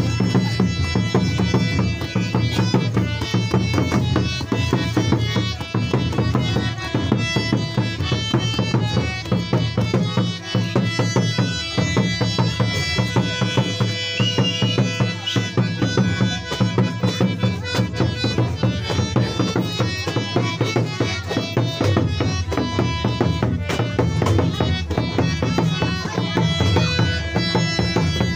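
Santali dong folk music for a wedding line dance: a barrel drum (tumdak) beats a steady rhythm under a sustained, reedy melody that runs on without a break.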